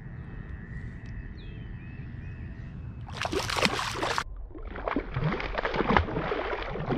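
Water splashing and sloshing as a hooked bass thrashes at the surface during the fight, in a burst about three seconds in and another rougher stretch from about four and a half seconds on. Faint bird chirps come before the splashing.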